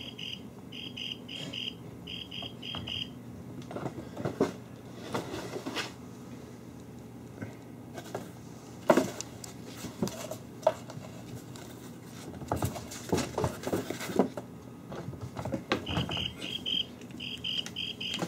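Kittens playing on a wooden floor: irregular scuffles, taps and knocks of paws and toys against the floor and a cardboard box. A regular high chirping, about three chirps a second, runs in the first few seconds and starts again near the end.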